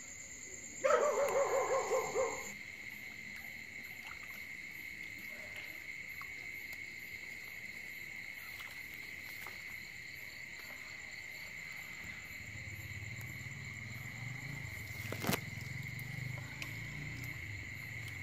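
Night chorus of crickets and other insects, a steady high trill. About a second in, a loud, rapidly pulsed animal call lasts about a second and a half. A single sharp click comes near the end.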